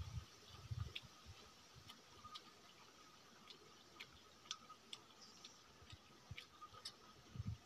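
Faint eating sounds: scattered soft clicks and smacks, with a few low chewing thuds near the start and end, as someone eats fish by hand.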